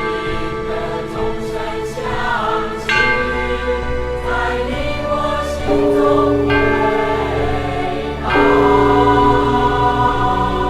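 Choral music: a choir singing slow, sustained chords over a steady accompaniment.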